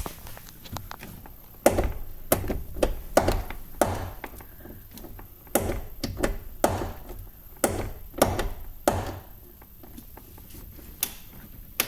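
A car door being handled, its loose fitting knocking as it is moved: about a dozen irregular knocks and clicks over several seconds, then one more near the end.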